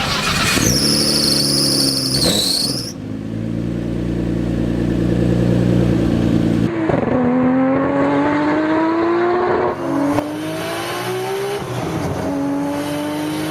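Nissan Skyline R32 GT-R's RB26DETT 2.6-litre twin-turbo inline-six. A high squeal sits over the engine for the first couple of seconds, then the engine runs steadily. From about seven seconds in it accelerates hard through the gears, its pitch rising and dropping at two upshifts.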